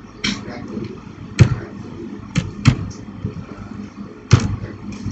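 Computer keyboard keys being typed: a handful of sharp, irregularly spaced clacks over a low background rumble.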